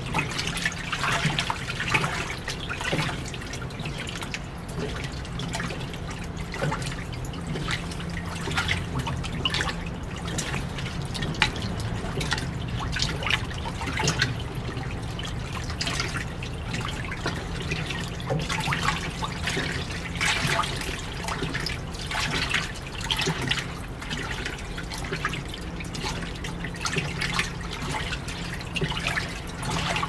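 Fisher & Paykel Washsmart WA8560G1 top-loading washing machine agitating a load of dark clothes: water sloshing and splashing irregularly in the full tub over a steady low hum.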